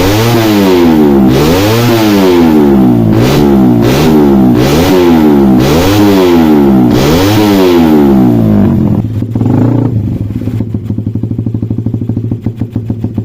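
Suzuki Satria FU single-cylinder motorcycle engine, fitted with a PE28 carburettor, revved repeatedly in short throttle blips about once a second to check the carburettor setting. After about eight and a half seconds it drops back and settles into a steady idle.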